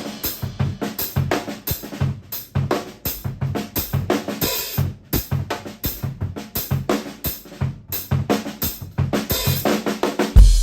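Acoustic drum kit being played in a steady groove: kick drum, snare and hi-hat and cymbals struck several times a second.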